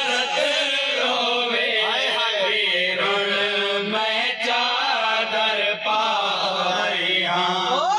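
Men's voices chanting a noha, a Shia lament, together on long, drawn-out notes that slide from pitch to pitch without a pause.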